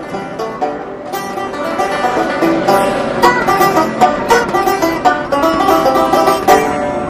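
Bluegrass-style background music led by a picked banjo, a steady run of quick plucked notes.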